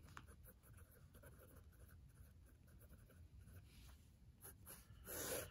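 Pen writing on paper: faint scratching strokes as a heading is written out by hand.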